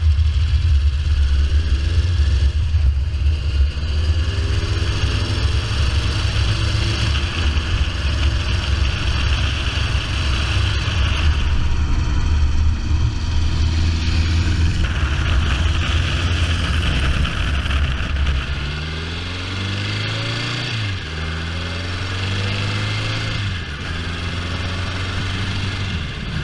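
Ariel Square Four's four-cylinder square-four engine running as the motorcycle rides along, the note steady at first, then twice rising in pitch and dropping back in the last third as it accelerates and shifts up.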